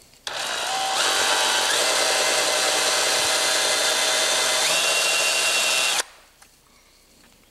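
Handheld power drill with a small twist bit boring a shallow hole partway into an acrylic sheet. The motor whines steadily for about six seconds, stepping up in pitch twice, then stops suddenly.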